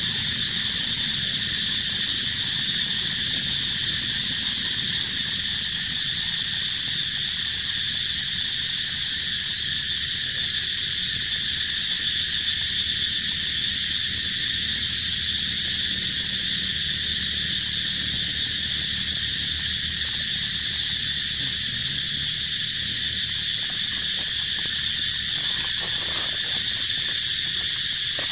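A dense insect chorus: a loud, shrill drone held at several pitches at once, without a break.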